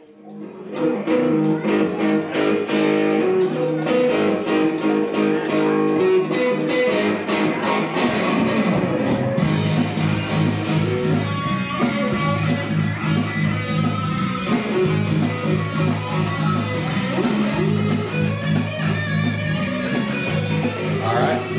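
Band music led by guitar, with bass and a steady beat; it starts right at the beginning and fills out with a brighter, busier rhythm about ten seconds in.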